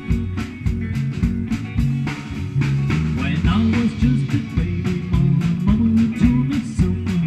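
Live rock band playing amplified: two electric guitars over bass guitar and a drum kit keeping a steady beat.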